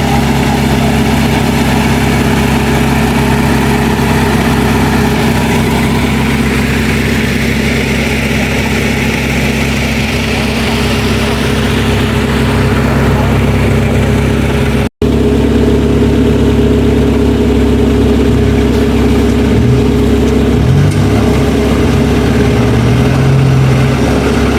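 Suzuki 4x4's engine running steadily at low revs on an off-road trail, with a momentary dropout about two-thirds of the way through.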